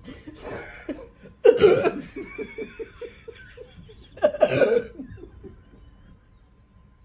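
A person coughing and laughing while trying to hold back a burp from chugged Sprite. A sharp loud cough about a second and a half in is followed by a quick run of short laughs, then a second loud cough about four seconds in.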